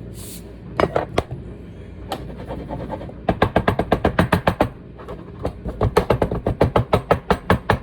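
Sea salt container worked over a jar, giving two runs of rapid clicks at about ten a second, with a couple of single clicks about a second in.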